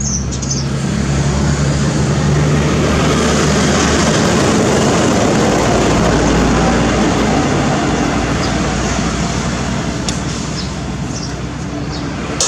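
A motor engine running steadily with a low hum under a loud, even noise; the hum changes pitch about four seconds in.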